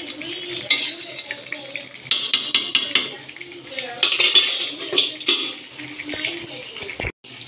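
A metal spoon scraping and clinking against a cooking pot as mutton in a thick masala is stirred and fried down (kashano), the stage where the spices cook into the meat. The scrapes and knocks come irregularly, several a second at times, and stop abruptly near the end.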